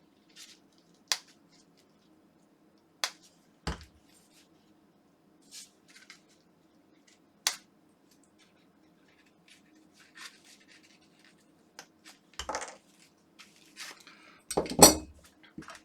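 Scattered metallic clicks, clinks and scrapes of hand tools working at the plastic handle of a Philips Sonicare electric toothbrush to pry it open. Two of them land as heavier knocks, the louder one near the end.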